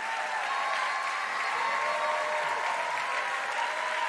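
Large crowd applauding steadily, with a few voices calling out above the clapping.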